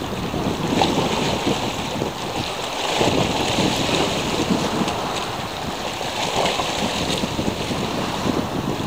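Sea waves washing, with wind buffeting the microphone as a rough, uneven rumble.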